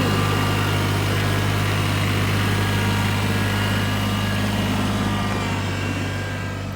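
A vehicle engine running steadily at idle, a low even hum that grows slightly quieter near the end.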